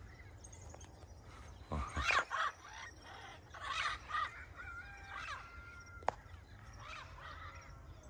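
Parrots squawking as they fly past: several scattered calls, the loudest about two seconds in, with some whistled notes later. A single sharp click comes about six seconds in.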